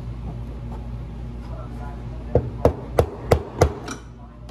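Five quick, sharp hammer taps, about three a second, starting a little past halfway, over a steady low hum.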